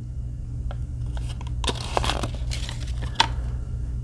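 A paper pamphlet being handled, rustling and crinkling with a few light clicks, over a steady low hum.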